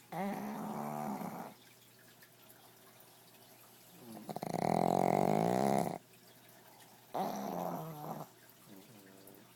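Pug snoring: three loud, pitched snores about three seconds apart, each a second or two long, the middle one the longest and loudest. A faint snore follows near the end.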